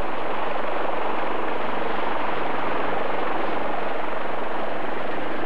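Small float-equipped helicopter, its rotor and engine making a steady, even noise as it lifts off and climbs away.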